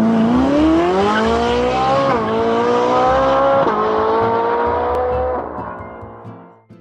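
A car engine accelerating hard through the gears, used as a sound effect: the pitch climbs, drops at a gear change about two seconds in and again a little before four seconds, then the sound fades away near the end.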